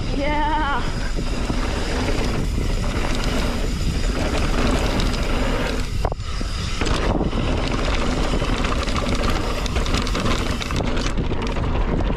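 Wind rushing over the microphone and mountain-bike tyres rolling fast over a dirt jump trail, a steady rushing noise. There is a brief wavering tone in the first second, and a short dip with a knock about six seconds in.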